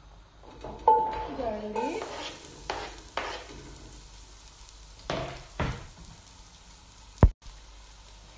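Chopped garlic scraped off a plastic chopping board into a little hot oil in a stainless steel stockpot and starting to sizzle. A brief squeal as it goes in about a second in, then a few scrapes and knocks, and a sharp click near the end.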